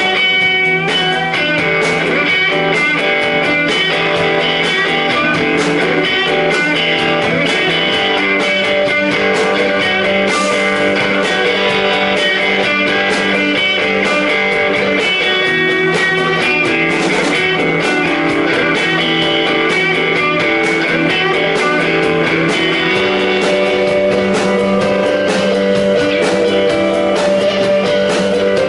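Live rock band playing an instrumental passage led by electric guitar, with steady percussive strikes under sustained guitar tones.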